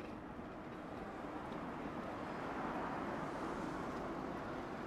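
City street traffic: a steady hiss of road noise from passing cars, swelling a little over the middle.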